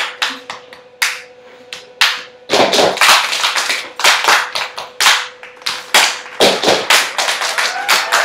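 A group's hand claps and slaps in a quick, uneven rhythm, a step-style routine with no chanting, thickening into a fast run of hits about two and a half seconds in. A faint steady tone sits underneath.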